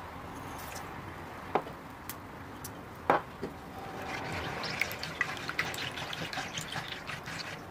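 Sugar tipped into milk in a bamboo bowl, with a couple of sharp knocks, the loudest about three seconds in, then a silicone spatula stirring the liquid from about four seconds in, swishing and scraping in quick small strokes against the wooden bowl.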